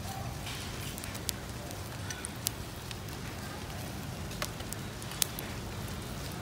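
Charcoal fire crackling under a grill of areolata sea snails, with a handful of sharp pops scattered over a steady background noise.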